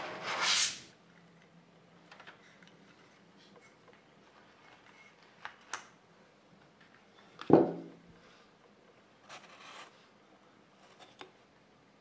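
A squeegee scraping solder paste across a metal stencil in one short pass, then faint taps and handling noises from the stencil frame, with one louder knock about seven and a half seconds in.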